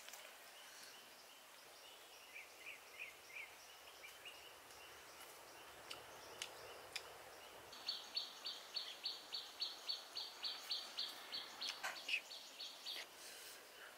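Bird calls over quiet outdoor ambience: a few short chirps a couple of seconds in, then from about halfway a fast, even series of high notes, about four a second, lasting some five seconds, over a faint steady high tone.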